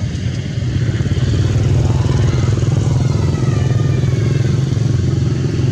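A motor engine running steadily nearby: a loud, even low rumble that swells a little about half a second in.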